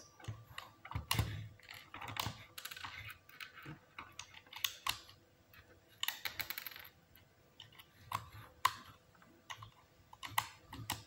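Plastic Lego Technic parts clicking and snapping as pins and lift arms are pressed together and handled, in irregular sharp clicks and small knocks.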